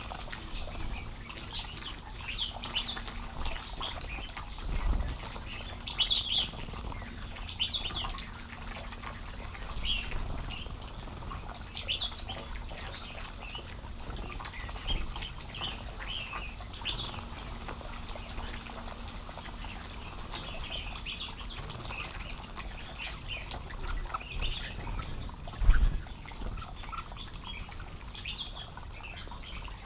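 Bulbuls calling with short, scattered chirps throughout, over light splashing of birds bathing in a shallow pond. A dull thump sounds once near the end.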